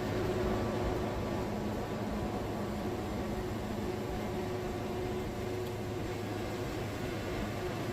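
Wood-Mizer band sawmill running steadily, its band blade cutting through a giant cypress log, with a constant engine hum under the cutting noise.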